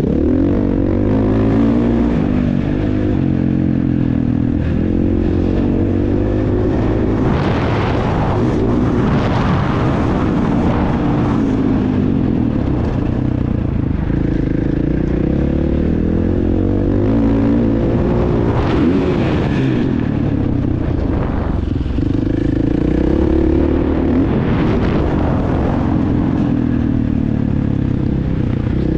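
Motocross bike engine revving up and down again and again as it is ridden around a dirt track, pitch climbing and dropping with throttle and gear changes. A few short bursts of rushing noise come in about a third of the way through, again past the middle, and once more later on.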